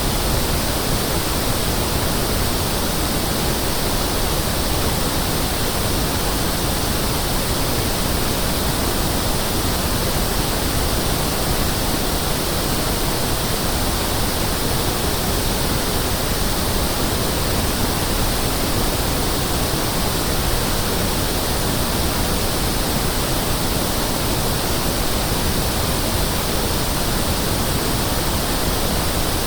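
Steady pink noise test signal: a constant, even hiss spread across the whole range of pitches, the kind used for testing loudspeakers, sound systems and room acoustics.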